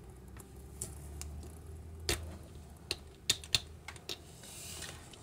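Small LEGO plastic pieces clicking and tapping against each other as they are handled and pressed together: about half a dozen sharp, separate clicks, scattered irregularly.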